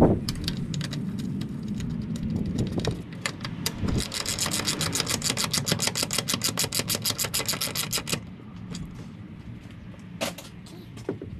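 Socket ratchet clicking as a bolt is driven: scattered clicks at first, then a fast, even run of about ten clicks a second for roughly four seconds that stops suddenly about eight seconds in. A single knock comes near the end.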